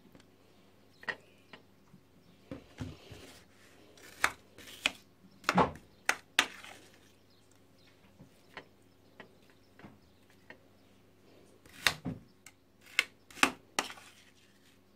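Metal spoon scraping and knocking against a metal cake pan while scooping frozen raspberry ice cream: a run of separate clinks and scrapes, the loudest coming in two clusters, one in the middle and one near the end.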